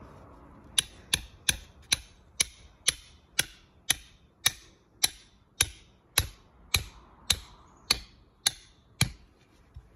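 A hammer driving a steel spike (nail) through plastic snap edge paver restraint into the ground. About seventeen sharp, ringing strikes come quickly at first, settle to about two a second, and stop near the end.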